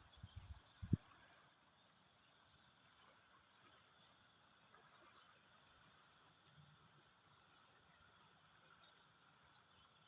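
Faint, steady high chirring of insects in the background, with a few low knocks in the first second.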